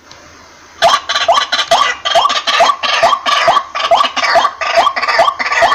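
White-breasted waterhen calling: a fast, even series of loud, harsh 'kwak' notes, each sliding quickly upward, about two and a half a second, starting just under a second in.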